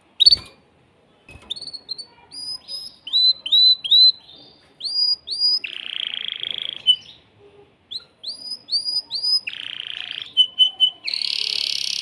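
Male canary singing a fast, varied song: runs of short curved whistled notes, about three or four a second, alternating with buzzy rolling trills, the song of an excited male in breeding condition. A sharp tap sounds right at the start.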